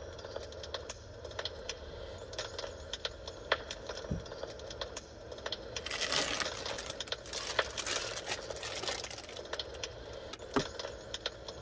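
Recorded fireplace sound of burning logs: irregular sharp pops and snaps over a low steady hum. From about six to nine seconds in, a plastic instant-noodle packet rustles and crinkles as it is handled, with a soft thump a little before.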